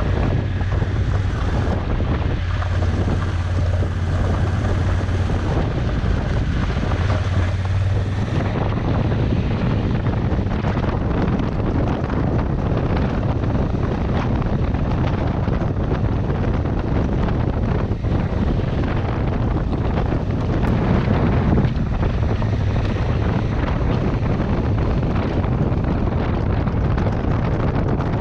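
Honda Africa Twin motorcycle riding along a dirt forest road: wind rushing over the microphone covers a steady low engine hum, with no let-up throughout.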